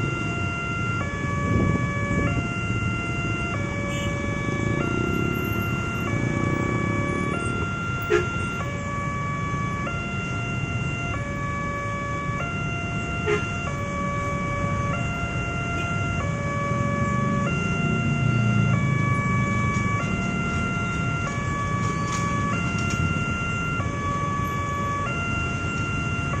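Indonesian railroad crossing alarm sounding continuously from the loudspeaker on the signal post, an electronic tone switching back and forth between two pitches: the warning that a train is approaching. Under it, the engines of the waiting motorcycles and a truck run with a low rumble that swells for a few seconds past the middle.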